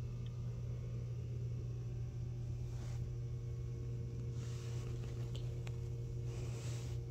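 A steady low hum, with three short rustles about three, four and a half and six and a half seconds in.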